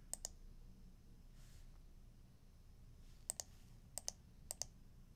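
Short sharp clicks in quick pairs, four pairs in all: one pair right at the start and three more between about three and five seconds in, over faint room tone.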